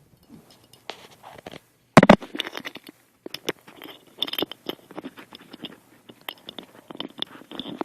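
Small clicks, taps and scrapes of an Iwata Eclipse airbrush's parts being handled as its trigger is worked down into the body, with a sharp knock about two seconds in.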